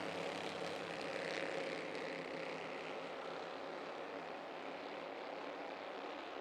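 Bandolero race cars' small engines running at racing speed around the oval, a droning pack of several engines that slowly fades as the cars move away.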